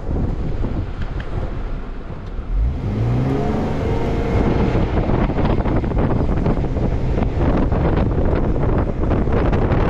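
Car engine revving up, its pitch rising about three seconds in, then a steady rumble of the running vehicle with wind buffeting the microphone.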